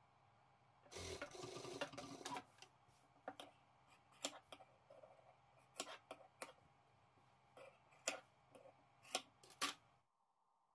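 Scissors snipping fabric: a dozen or so sharp, separate clicks spread over several seconds, after a short stretch of fabric rustling. A faint steady low hum sits underneath and stops abruptly near the end.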